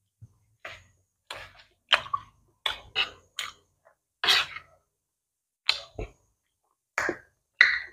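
Close-up eating sounds: wet chewing and lip-smacking on soft khichdi, picked up by a clip-on mic, mixed with a metal spoon scraping and tapping on the plate. About a dozen short, irregular sounds with gaps between.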